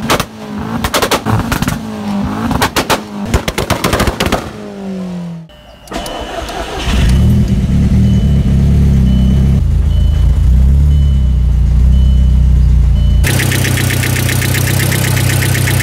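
VW Jetta 1.8T turbo four-cylinder on 2-step launch control: a rapid string of exhaust bangs and pops as the ignition cut holds the revs, with the revs falling away near five seconds in. After a short gap the engine runs with a loud low drone while a high beep repeats about once a second. Near the end a harsher sound with fast ticking comes in, the abnormal engine noise left by the 2-step damage.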